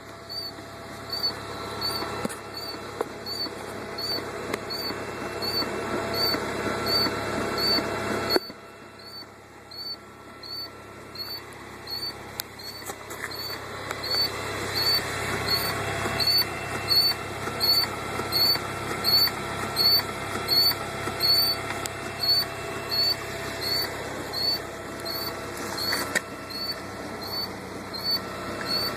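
A 2000 Volvo V40 1.9T engine running, with a short, high-pitched squeak repeating about twice a second over the engine hum. This is the strange noise the car makes after starting.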